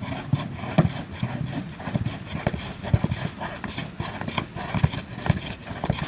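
A hole-drilled plunger working as the agitator of a two-bucket washing machine, pumped up and down through the lid into clothes and soapy water. Its strokes come as rhythmic thumps and sloshes, about two a second.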